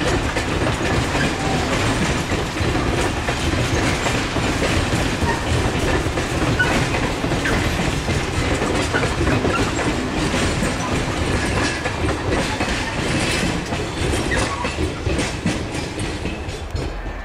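Container freight train's flat wagons rolling past, wheels clattering over the rail joints. The noise eases slightly near the end as the last wagons go by.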